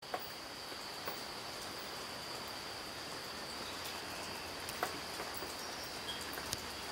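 Nighttime insects calling in a steady, unbroken high-pitched trill over an even hiss of forest ambience, with a few faint clicks scattered through it.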